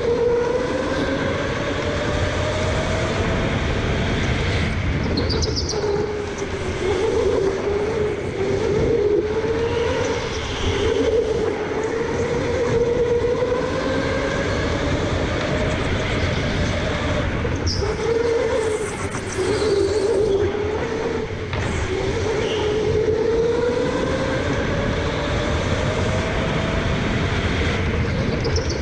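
Electric indoor go-kart heard from onboard: the motor's whine climbs slowly in pitch on the straights, then drops and wavers as the kart slows through the turns, over a constant rumble of tyres and chassis. A few brief high tyre squeals come in the corners.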